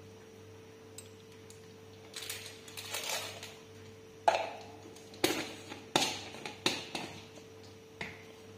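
Kitchen containers and utensils being handled: a rustle, then about five sharp clinks and knocks spaced roughly a second apart, over a steady faint hum.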